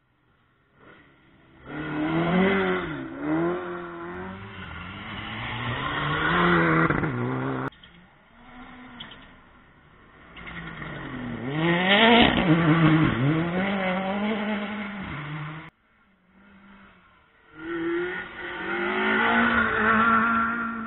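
Rally cars on a gravel stage, engines revving hard, their pitch repeatedly rising and dropping through gear changes and lifts as each car approaches and passes. Three separate passes are heard, each breaking off suddenly.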